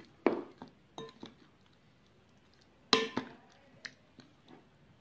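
A plastic spoon knocking and clinking against a glass mixing bowl while chicken drumsticks are turned in a thick marinade: a few scattered knocks with a short glassy ring, the loudest about three seconds in.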